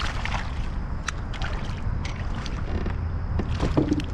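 Wind rumbling on the microphone, with scattered short clicks and light splashes of water against the canoe.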